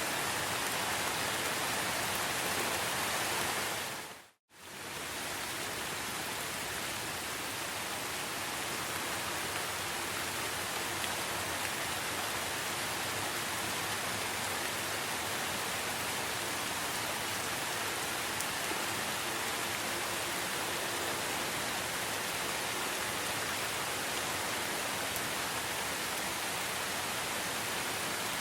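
Steady rain falling, an even hiss. About four seconds in, it fades out to silence for a split second and fades straight back in.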